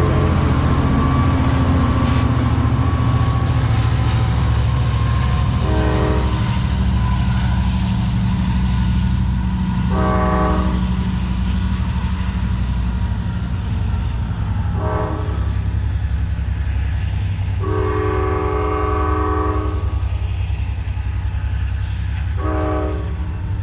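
Passing Amtrak San Joaquins passenger train sounding its horn in five blasts, the fourth held longest, over the steady heavy rumble of the train on the rails.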